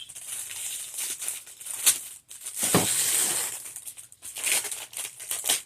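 Wrapping of firecracker packs rustling and crinkling as they are handled, with a couple of sharp clicks, the sharpest a little under two seconds in.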